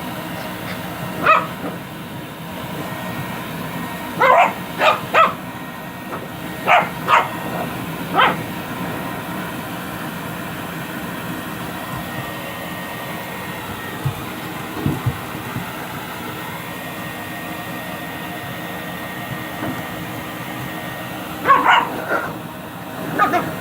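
A dog barking and yipping in short bursts over the steady rush of a forced-air grooming dryer: one bark about a second in, a run of several barks a few seconds later, and a few more near the end.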